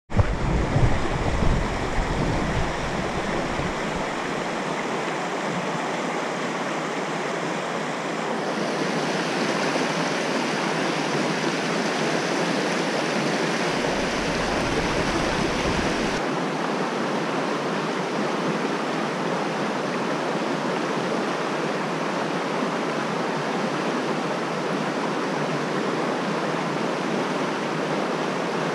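Mountain stream rushing over rocks in shallow rapids: a steady, even wash of water noise. A few low bumps in the first couple of seconds.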